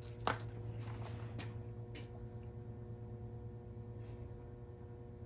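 A few light clicks from a spark plug and multimeter probes being handled during a resistance test: one sharp click about a quarter second in, then two fainter ones. A steady low hum runs underneath.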